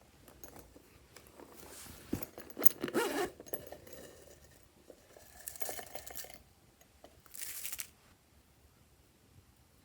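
Hands squishing and stretching glossy slime in short spells: about two to three seconds in (the loudest), again near six seconds, and once more near seven and a half seconds.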